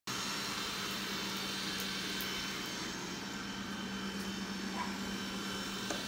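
Roborock robot vacuum cleaner running: a steady whir with a constant low hum.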